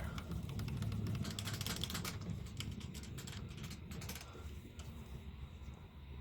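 A quick run of small clicks and ticks for about four seconds, thinning out near the end, over a steady low hum: metal tools and parts being handled while setting up work in a lathe chuck.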